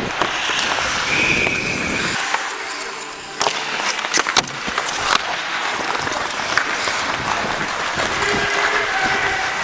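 Ice skate blades scraping and carving on the rink, with a few sharp stick-on-puck clacks from about three and a half to five seconds in.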